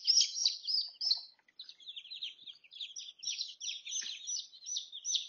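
Day-old chicks peeping, many quick high peeps overlapping in a busy run, with a short lull about a second and a half in.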